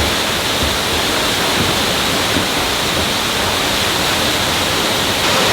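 Steady, loud rush of a waterfall's falling water, an even noise without a break.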